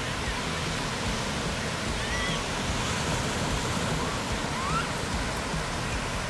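Steady rushing noise of moving water. A few faint, short high chirps sound over it.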